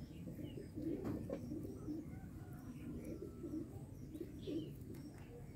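Pigeons cooing repeatedly in low hooting notes, with a few faint chirps of small birds.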